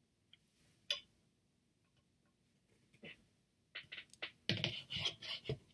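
Objects being handled: a few scattered clicks, then a quick run of knocks and rustling near the end.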